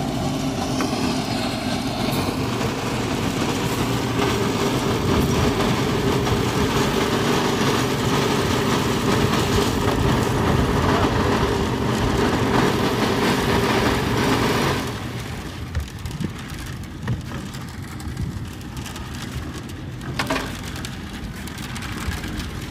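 Drum concrete mixer running steadily with a constant machine hum, joined by other yard machinery; the noise drops noticeably about two-thirds of the way through, and a single knock sounds near the end.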